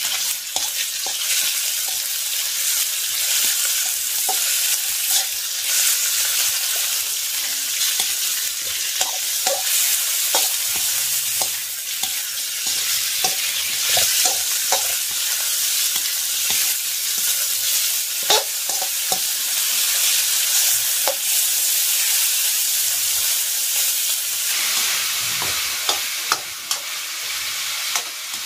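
Food sizzling as it fries in a pan, with the steady hiss of hot oil and scattered clicks and knocks of a utensil stirring against the pan.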